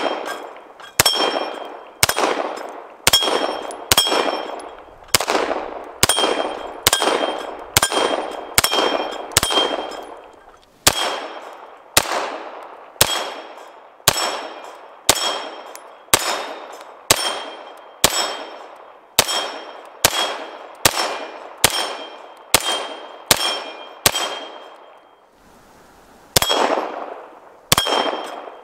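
Beretta 92X Performance 9mm pistol fired at a steady pace of about one shot a second. Each shot is followed by the ringing clang of a steel plate target being hit. There is a short pause about three-quarters of the way through before firing resumes.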